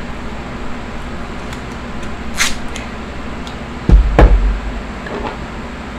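Tape ripped briefly off its roll about two and a half seconds in, then a cluster of heavy, dull knocks about a second and a half later, the loudest sound here, as a tool is handled.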